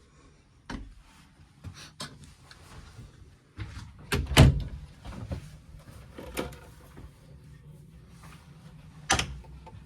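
A boat's interior cabin door and fittings being handled: a few separate knocks and clunks, the loudest about four seconds in, another near six seconds and a sharp one near the end.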